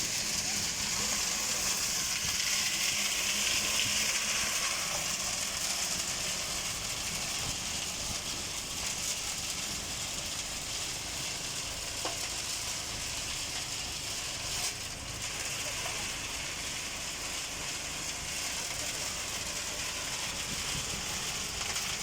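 Tractor-PTO-driven transit concrete mixer running: a steady hiss from the turning drum over a faint low hum.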